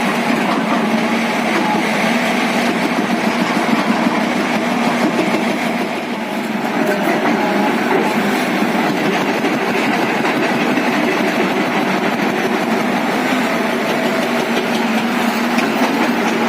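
JCB JS215 tracked excavator's diesel engine running steadily, dipping slightly about six seconds in.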